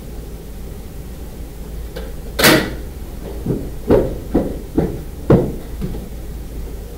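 A short loud scrape, then about six irregular knocks or thuds over the next two and a half seconds, over a steady low hum.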